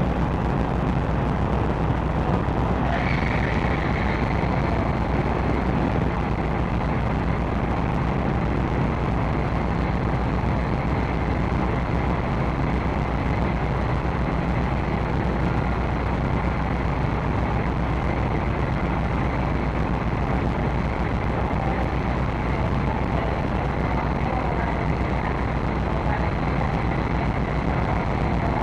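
Car ferry's engines and machinery running with a steady low hum and rumble. A faint high whine joins about three seconds in and holds.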